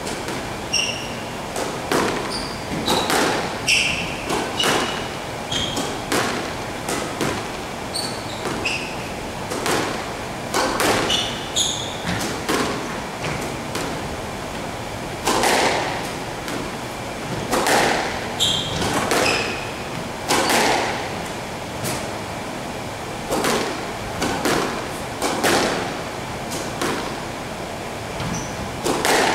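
Squash rally: a squash ball smacking off rackets and the court walls in repeated sharp hits, with sneakers squeaking in short high chirps on the wooden floor. There are two brief lulls between rallies.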